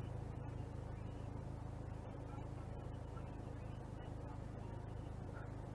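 Steady low hum of a car engine idling, heard from inside the cabin through a dash cam's microphone.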